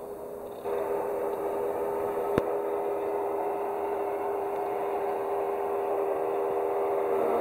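Small outboard motor running at a steady speed, an even droning hum that cuts in abruptly under a second in, with a single sharp click a couple of seconds later.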